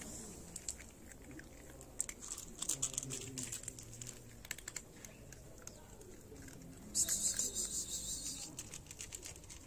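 Cats crunching dry kibble: a string of quick, irregular crunches and clicks, thickest in the first half. Near the end a short hiss lasting about a second and a half is the loudest sound.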